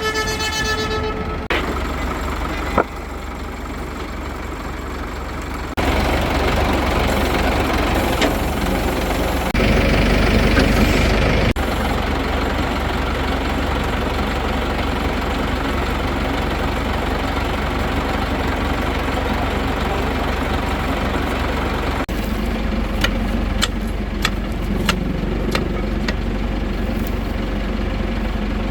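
Heavy engine running steadily, getting louder a few seconds in, louder still for about two seconds, then settling. It opens with a brief horn-like tone, and a run of sharp clicks or knocks comes near the end.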